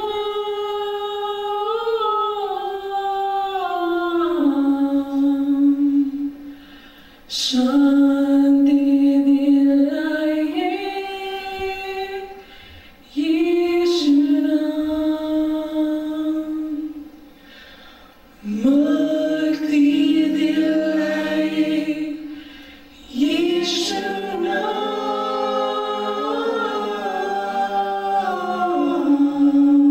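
An a cappella group of men's and women's voices singing a slow song in harmony, without instruments. The song moves in five long phrases of sustained, gliding notes, each followed by a brief pause.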